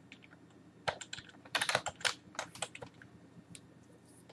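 Typing on a computer keyboard: irregular keystroke clicks, a few at a time, with the quickest run of keys about one and a half to two seconds in.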